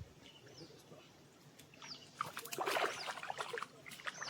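A bird calling, a short falling whistle repeated about once a second. A louder burst of rough noise with clicks comes in the middle.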